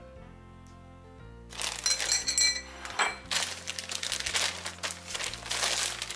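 Crinkling and rustling, starting about a second and a half in and going on for several seconds, over soft background music.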